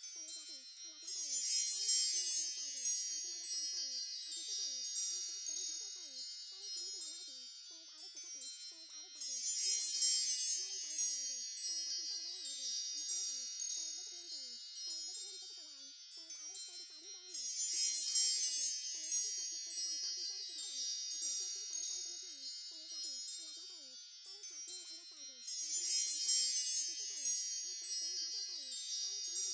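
Wind chimes tinkling continuously in a looped track, with a brighter swell of chiming about every eight seconds.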